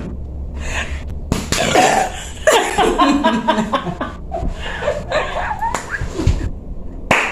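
A person belching in short throaty bursts after gulping cola, broken up by coughing and laughter.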